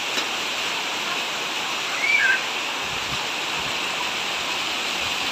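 Heavy rain falling steadily, a dense even hiss, with a brief high-pitched cry about two seconds in.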